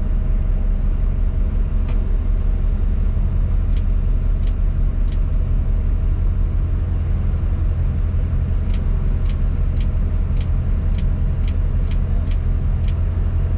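Tadano 180G-5 rough-terrain crane's diesel engine running steadily, heard from inside the operator's cab during the lift. About a dozen sharp clicks sound over it, most of them in the second half at roughly two a second.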